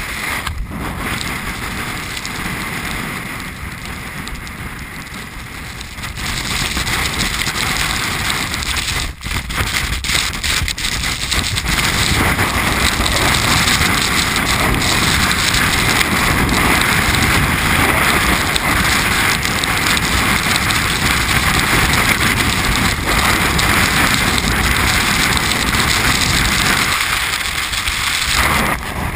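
Gale-force mountain wind blowing across a GoPro's microphone: a steady rushing noise that grows louder about six seconds in and louder still from about twelve seconds on.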